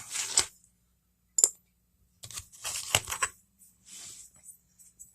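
Metal motorized-bicycle sprocket parts clinking and clattering against each other as they are handled, in a few short bursts with the longest about halfway through.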